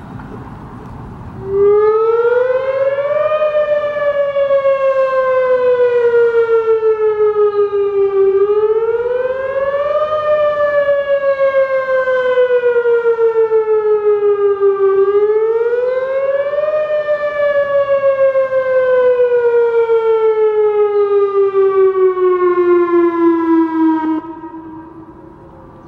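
Whelen WPS 2810 electronic outdoor warning siren sounding a loud wail. The pitch climbs quickly over about two seconds, then falls slowly over about five, three times in all. It starts about a second and a half in and cuts off near the end, leaving a faint falling tail.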